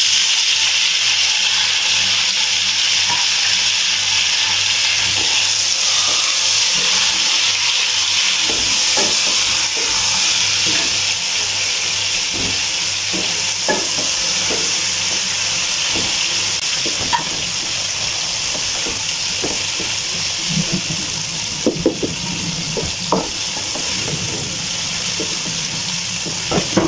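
Sliced tomatoes and green chillies hitting hot oil in a pot and sizzling with a steady hiss that sets in suddenly and eases a little over time. A wooden spoon stirs them, with scattered knocks and scrapes against the pot, more of them in the second half.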